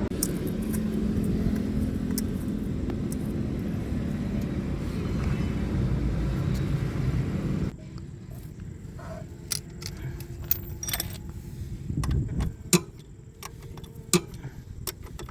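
A steady low rumble that cuts off abruptly about halfway through, followed by scattered metallic clinks and taps of tools and parts being handled during scooter gearbox reassembly.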